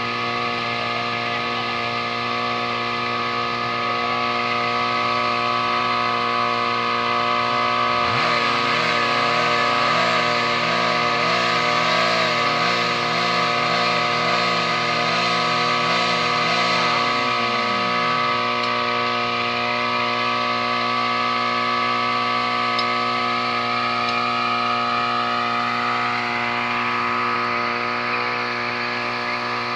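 A steady droning hum of several held tones, over which a siren winds up about eight seconds in, wavers up and down for about ten seconds, then winds down.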